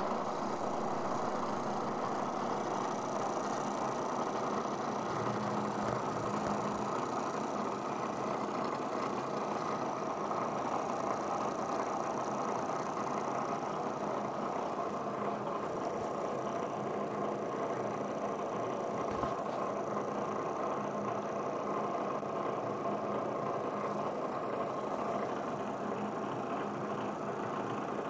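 Milling machine running steadily, a constant mechanical drone with a faint low hum under it.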